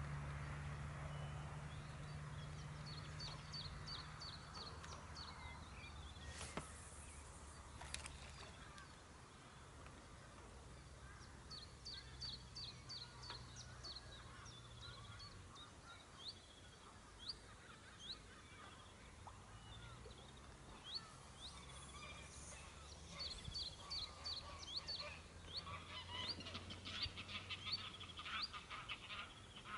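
Birds calling around a pond: repeated runs of short, high chirps that grow busier near the end, mixed with honking waterfowl calls. A low steady hum runs underneath, and there are two sharp knocks about six and eight seconds in.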